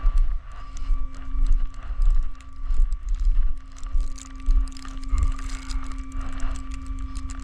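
Gusting wind buffeting the microphone in a snowstorm, rising and falling, over a steady hum from the flatbed tow truck.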